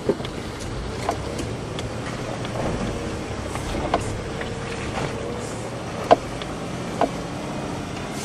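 Cabin noise of a Land Rover Discovery 3 crawling over a rough off-road track: a steady low engine and tyre rumble, broken by about half a dozen short sharp knocks from the body and suspension, the loudest about six seconds in.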